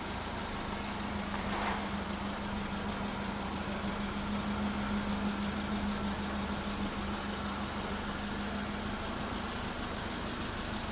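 Subaru Sambar kei truck's 660 cc four-cylinder engine idling steadily, an even hum with no change in revs.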